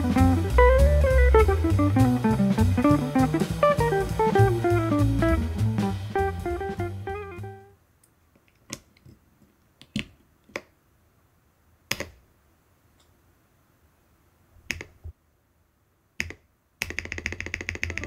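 Guitar-and-drum background music that fades out about seven seconds in. Then a handful of sharp single clicks, a second or more apart: PBTFans RIM keycaps pressed onto the keyboard's TECSEE Neapolitan switch stems. About a second before the end, rapid clicking of typing on the finished keyboard begins.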